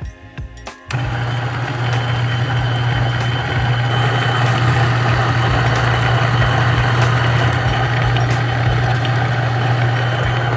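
Niche coffee grinder motor grinding espresso beans. It starts about a second in and runs steadily as a loud hum.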